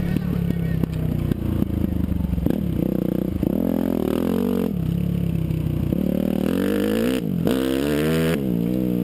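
Dirt bike engine running while being ridden, its pitch climbing and dropping several times near the end as the throttle is opened and closed.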